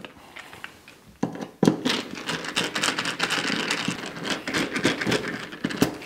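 Screws being loosened from a fridge's metal door hinge with a screwdriver: a couple of sharp clicks about a second in, then a steady scratchy crackle of metal grinding as the screws turn out.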